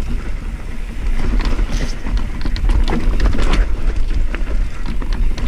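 Rurok Cordillera mountain bike riding down a rough dirt trail: a steady low rumble of wind and vibration on the camera's microphone, with irregular clattering and rattling as the tyres and bike go over the bumps.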